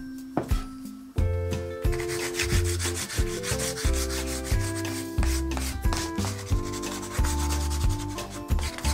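Crayon rubbed back and forth on corrugated cardboard in quick scratchy strokes, starting about two seconds in, over background music with a melody and bass notes.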